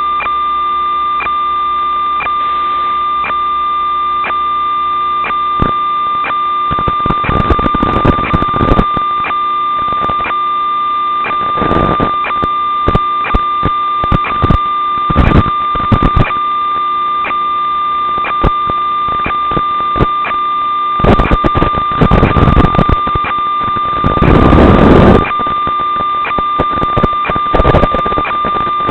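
Steady electronic whine with regular faint ticks, typical of an analog FPV video link's audio channel, broken by repeated bursts of static hiss as the signal breaks up, the loudest burst near the end.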